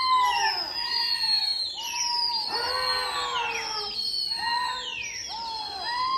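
Pigeon flyers giving shrill, wordless high-pitched calls and whistles, several overlapping and repeated about once a second, some sliding downward in pitch.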